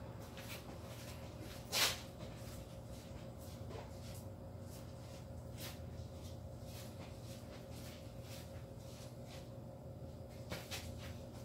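Steady low hum, with a single sharp knock about two seconds in and scattered faint clicks and taps as someone moves about a workshop, a few more clustered near the end.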